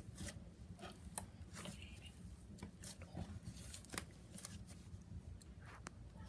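Butter slime being kneaded and stretched by hand, making faint, irregular small clicks and pops as air pockets in it burst.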